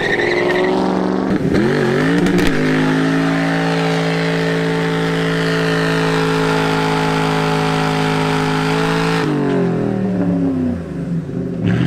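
Ford Mustang doing a burnout: the engine revs up and is held at a steady high rev for several seconds as the rear tyres spin, over a hiss. The revs drop about nine seconds in, then climb again near the end.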